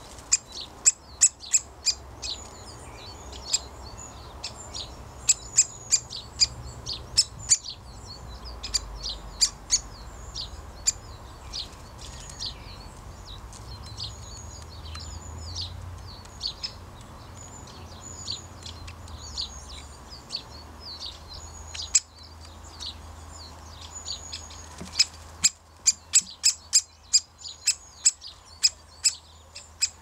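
Great spotted woodpeckers calling: sharp, high, short 'kik' notes repeated irregularly, with softer high twittering behind. The calls thin out briefly late on, then come in a quicker run near the end.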